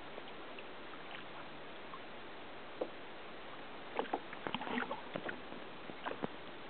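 Sea water washing and lapping around a kayak's hull, a steady wash, with a run of small knocks and splashes starting about four seconds in.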